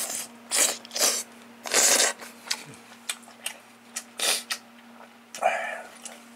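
Someone eating boiled samgyetang chicken off the bone: a run of short, sharp wet chewing, lip-smacking and slurping noises at irregular intervals, the longest about two seconds in.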